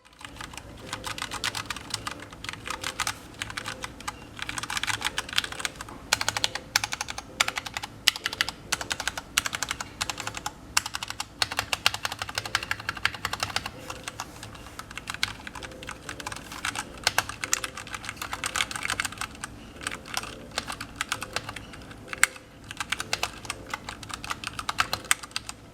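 Typing on a Ducky One 2 Mecha Mini 60% mechanical keyboard with Cherry MX Brown switches: a fast, continuous run of key presses, the tactile switches clacking as the keys bottom out, with a few brief lulls.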